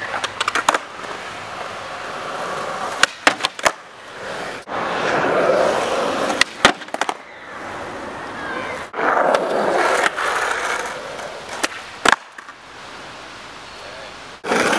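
Skateboard wheels rolling over rough asphalt, broken by sharp wooden clacks of the board popping, hitting a wooden grind box and slapping down on landing during hurricane grind attempts.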